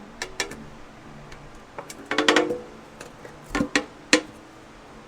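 Lid of a jug of carburetor cleaner being worked open by hand: a scatter of sharp clicks and knocks, with a short rattle about two seconds in and a few louder knocks near the end.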